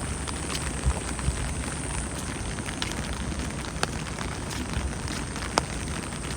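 Steady rain falling, with many scattered drops tapping close by and a few sharper, louder drips.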